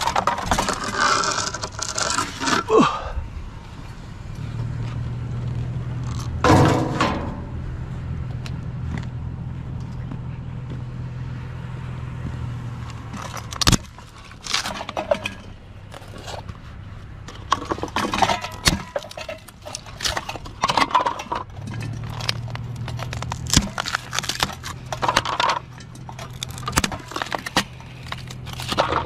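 Clattering and rattling of scrap being handled, with sharp knocks, while a vehicle engine hums steadily in two long stretches.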